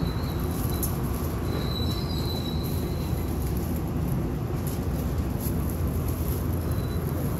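Tobu Skytree Line local train pulling into the station platform, heard from inside at the doors: a steady low rumble, with a faint high brake squeal about two seconds in.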